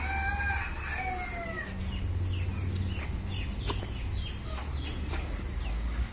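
One long animal call, about a second and a half, that falls in pitch at its end. It is followed by short chirps and scattered clicks over a steady low rumble.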